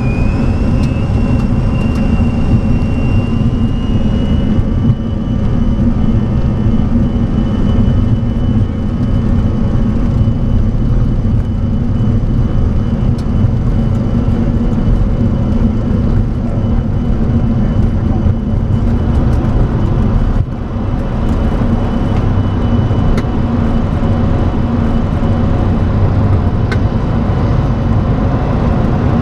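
Boeing 737-400's CFM56 jet engines at takeoff thrust, heard inside the cockpit: a whine rising over the first few seconds as the engines spool up, then holding steady over a loud rumble through the takeoff roll and climb-out.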